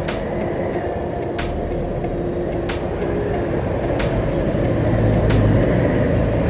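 Honda TMX Supremo 150 motorcycle's single-cylinder engine running at low road speed, with steady wind and road noise. A sharp click sounds at regular intervals, about once every second and a quarter.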